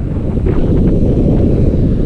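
Wind buffeting the microphone of a camera on a moving bicycle, a steady loud rumble.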